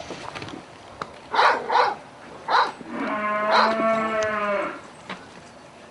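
A bull bellowing: one long moo of about a second and a half, starting about three seconds in and sagging slightly in pitch, after two short rough sounds.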